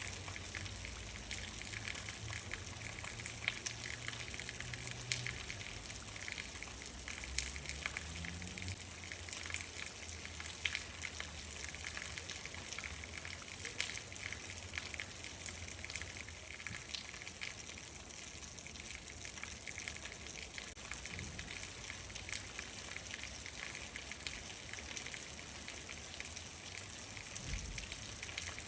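Steady rain, with many separate drops ticking over an even hiss. A low rumble sits under it for the first several seconds.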